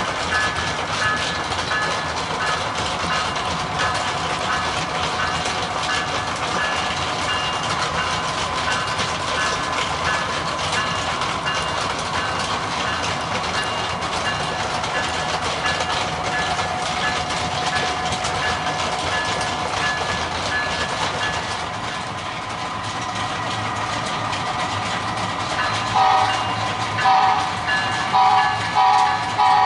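A train running steadily, then its horn sounding in several blasts in quick succession near the end.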